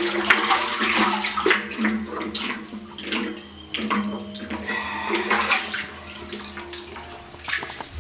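Plastic bucket on a rope dropped into a well, splashing and sloshing as it fills with water, with irregular splashes throughout as it is jerked and then hauled up the shaft.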